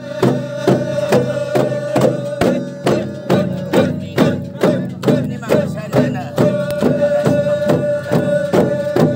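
Percussion-led Garo Wangala festival music: drums beating evenly, about two strikes a second, under a held ringing tone.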